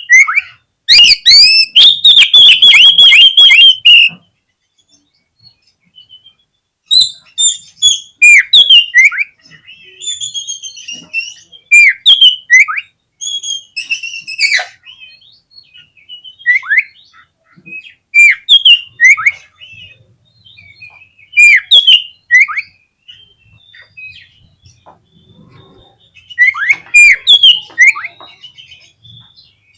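Oriental magpie-robin (kacer) singing loud, varied whistled phrases: a fast run of repeated notes about a second in, a pause of a few seconds, then a string of short down-slurred whistles.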